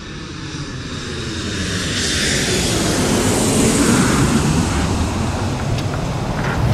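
Twin-engine jet airliner flying low on landing approach: a steady jet roar that builds to its loudest about halfway through, then eases slightly.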